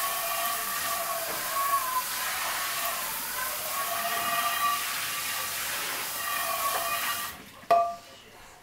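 A steady hissing sizzle with wavering whistle-like tones running through it, which stops suddenly about seven seconds in; a single sharp knock follows.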